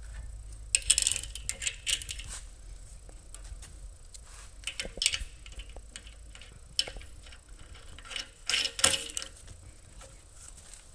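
Small metal parts clinking and clicking, in a few short clusters with single clicks between: hardware being handled while mounting the barrel vise to the bench-vise mount.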